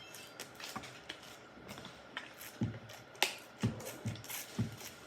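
Homemade slime being worked by hand on a table: small clicks and sticky popping, with a handful of short, soft thumps in the second half.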